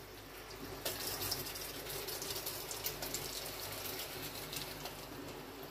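Hot caramel sizzling and bubbling as it is poured from a frying pan into an aluminium pot, with a light knock of the pan about a second in.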